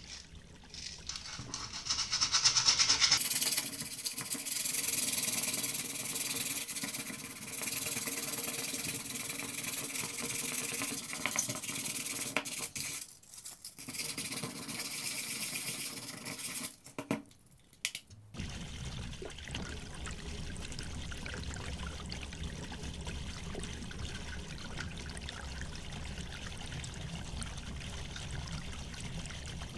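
Sandpaper scrubbing over a hardened plastic weld patch on a plastic junction box, smoothing the repair: a bright, scratchy rasp that starts about a second in and stops short around the middle, after which only a steady low background noise remains.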